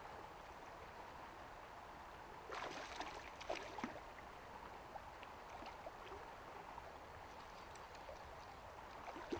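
Shallow river flowing steadily over a stony bed. About two and a half seconds in there is a second or so of louder splashing, a hooked trout thrashing at the landing net, followed by scattered small drips and splashes.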